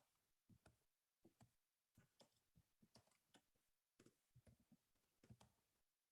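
Near silence with faint, irregular single clicks scattered through it, about a dozen in all.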